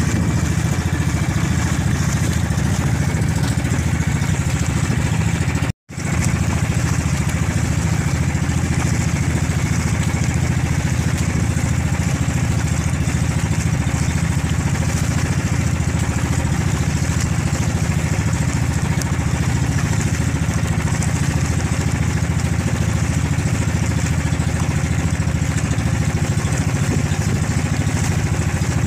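Engine of a small motorized bangka running steadily under way, a low pulsing rumble with water hiss over it. The sound cuts out for an instant about six seconds in.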